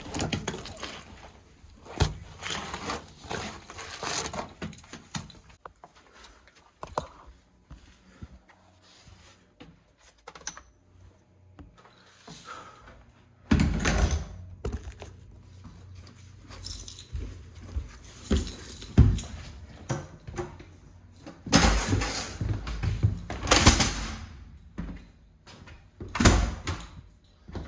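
A person moving about and handling gear: irregular rustling and scraping with clinks like keys or tools and scattered knocks, growing louder in bursts around the middle and again near the end.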